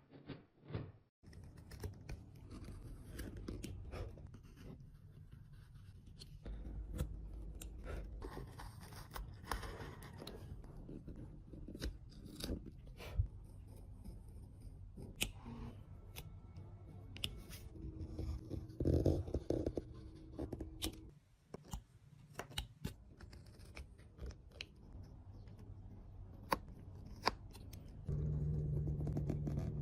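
Woodworking hand-tool work on wood: many irregular sharp clicks and taps with short scraping and cutting noises over a low rumble, and a steady low hum coming in near the end.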